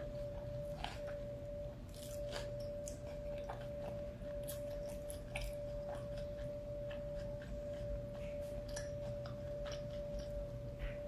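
Close-miked mouth sounds of someone eating a soft taco with shredded lettuce: chewing and biting, with scattered small crunches and wet clicks. A steady tone hums underneath throughout.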